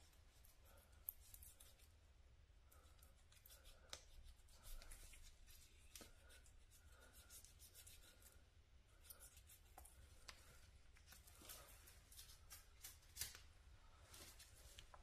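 Faint, scattered scraping and clicking of a small knife blade cutting off the excess end of a rubber tire plug flush with the tread.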